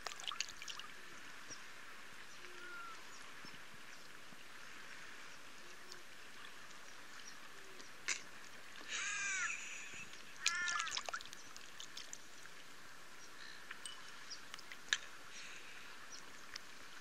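Choppy lake water lapping under a steady hiss of wind and water. About halfway through come two short runs of harsh, repeated animal calls, each a quick series of rising-and-falling cries, and a few sharp clicks are scattered through.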